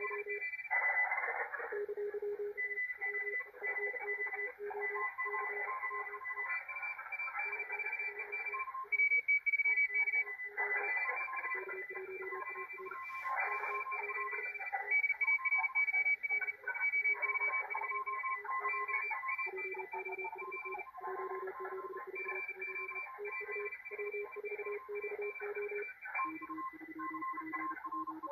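Morse code (CW) pileup on the 40-metre amateur band from a Malachite DSP SDR receiver: several stations keying at once at different pitches, low and high beeps overlapping over band hiss. The signals are too crowded for the receiver's CW decoder to read.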